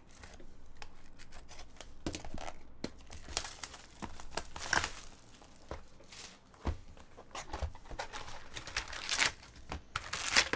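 Packaging on a trading-card box being torn open and crinkled by hand, an irregular run of rips and crinkles.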